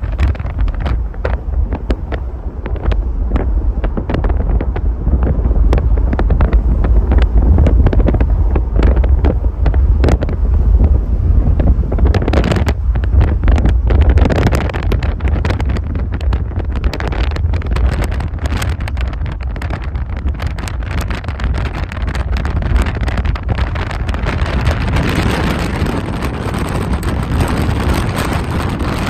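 Wind buffeting the microphone: a loud, low rumble that swells in gusts, strongest in the first half.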